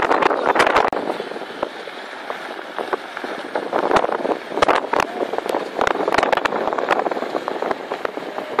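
Wind and road noise of a vehicle driving in a convoy on a dirt-edged desert road, louder for the first second, with scattered sharp knocks throughout.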